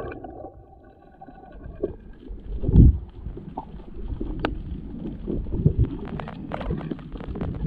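Muffled underwater noise picked up by a camera held under the sea, with a low rumble about three seconds in and scattered faint clicks.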